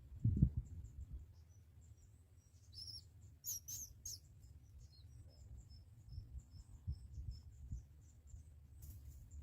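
Small birds chirping: a run of short, high, faint chirps, with a louder burst of calls about three to four seconds in and another near the end. A low thump comes just after the start.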